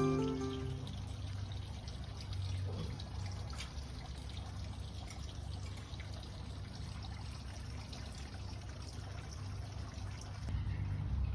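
Faint steady outdoor background noise, mostly a low rumble with a thin hiss above it, as the last notes of music die away in the first second.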